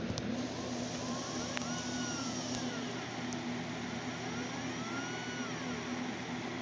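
Stepper motors of a homebrew 3-axis CNC machine driving its ball-screw axes, a whine that rises and then falls in pitch as each move speeds up and slows down, over a steady hum. A few sharp ticks in the first half.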